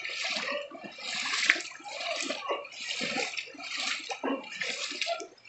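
Footsteps wading through shallow floodwater on a road: the water splashes and sloshes in repeated bursts, roughly once a second.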